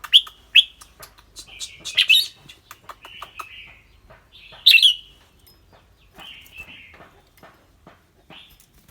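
Caged red-whiskered bulbul calling: short, clear whistled notes and softer chattering. The loudest notes come about two and about four and a half seconds in, with small sharp ticks between them.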